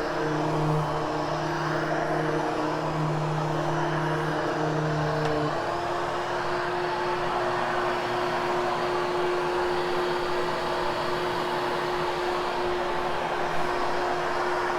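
Upright vacuum cleaner running steadily with a constant motor hum, its tone shifting slightly about five and a half seconds in.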